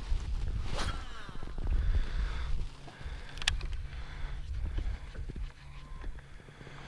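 Uneven low rumble of wind and water around a small fishing boat on a lake, with two sharp clicks, one about a second in and one midway.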